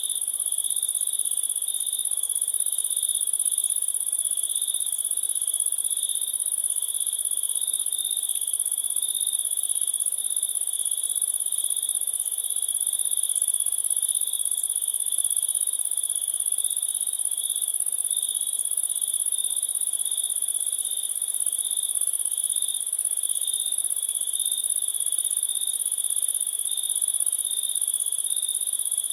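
A chorus of crickets chirping continuously, with an even pulsing trill around a mid-high pitch and a second, higher steady band above it.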